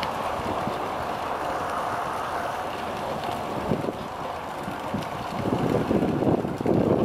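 Kanto Railway Joso Line diesel railcar running steadily as it pulls away on its departure. From about five and a half seconds in, wind gusts buffet the microphone and grow louder than the train.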